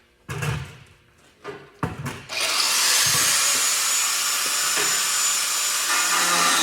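A few knocks and handling sounds, then about two seconds in an angle grinder starts grinding the plow blade's steel, running loud and steady with a high whine.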